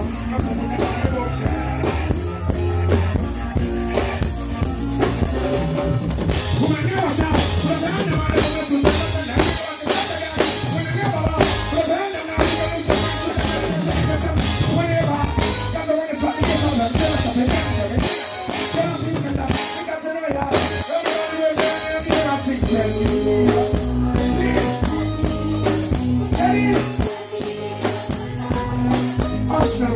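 Loud live stage-show music: a band playing with a steady drum-kit beat.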